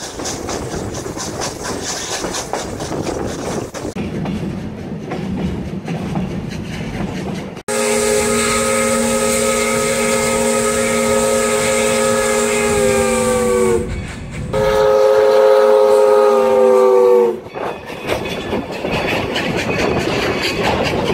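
Steam passenger train rolling with wheels clicking over the rail joints, then the 1910 steam locomotive No. 40's chime whistle blows two long blasts, the first about six seconds and the second about three, each sagging in pitch as it cuts off. The whistle is the loudest sound.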